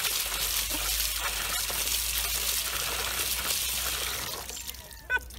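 Water pouring from a street water-pump spout and splashing into the basin and over a small dog sitting in it. The splashing stops about four and a half seconds in, and a brief high-pitched cry follows near the end.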